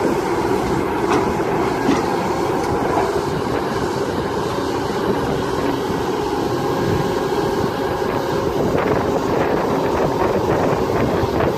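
Kobelco SK200-10 hydraulic excavator running steadily under load as it swings and digs, diesel engine and hydraulics droning. Sharp clanks and scraping come thicker near the end, as the steel bucket bites into rocky soil.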